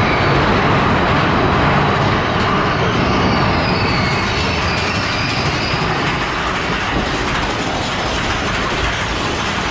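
Big Thunder Mountain Railroad mine-train coaster cars running along the track, a steady loud rumble and rattle with a faint high wheel squeal a few seconds in.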